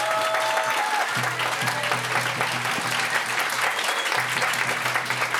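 Guests applauding steadily, a dense clatter of many hands clapping, as a held call from the officiant fades out in the first second.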